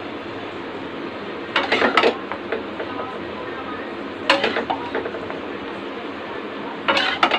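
A serving spoon clinking and scraping against a pan as creamy penne is scooped out into a bowl. It comes in three short bursts about two and a half seconds apart, over a steady background hum.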